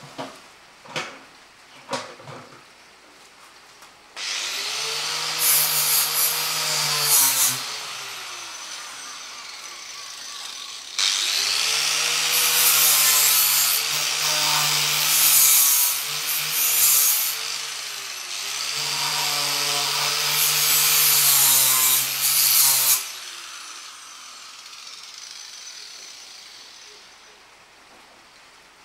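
A handheld electric power tool held against a steel ammo box, running in two long spells, its motor pitch sagging and rising as it is pressed and eased, with a loud hissing noise over it. A few sharp knocks come in the first couple of seconds, and the motor winds down near the end.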